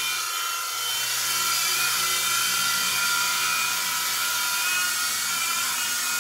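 Protocol Skyline G-Series coaxial RC helicopter in flight: its small electric motors and twin rotors make a steady high whine of several tones.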